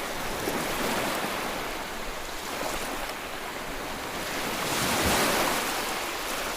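Sea waves breaking and washing up on a sandy bathing beach, a slow rushing surge that grows loudest about five seconds in.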